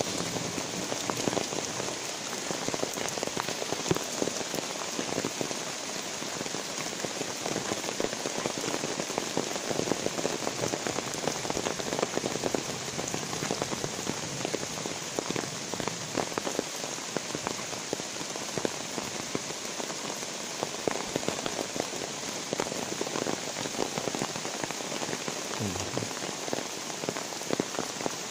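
Light rain falling: a steady patter of drops, with many small ticks as they strike nearby surfaces.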